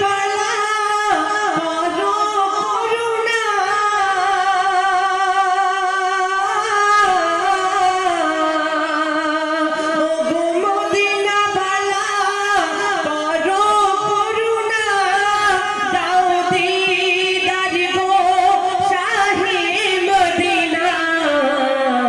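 Wordless sung melody of a devotional gojol: a voice holding and gliding between long notes with heavy vibrato, an interlude between verses.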